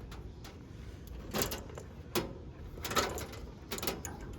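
Wiring of an air conditioner's condenser fan motor being pulled through the unit, a series of short scrapes and clicks of wire and metal handling.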